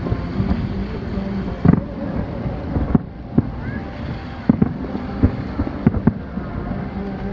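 Aerial firework shells bursting in a run of about seven sharp bangs at irregular intervals, over a steady background rumble of wind and noise.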